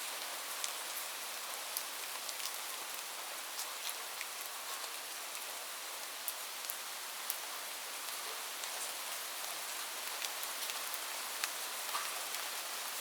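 Steady rain: an even hiss of falling rain with many separate drops ticking through it.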